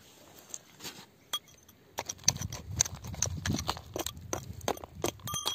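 A small metal pick scraping and clinking against gravel and rock: a dense string of irregular sharp clicks and scrapes that starts about two seconds in, with only a few scattered clicks before it.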